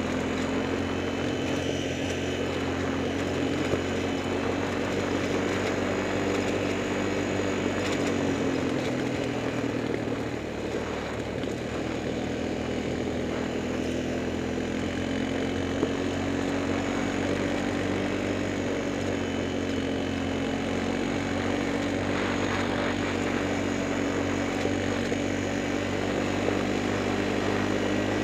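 Multirotor drone's motors and propellers running steadily close to the microphone: a hum of several close pitches that drift up and down slightly as it flies.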